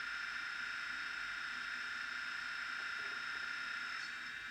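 An N-gauge electric locomotive's DCC sound decoder playing its air-compressor sound through the small onboard speaker: a steady buzzing hiss that fades out about four seconds in.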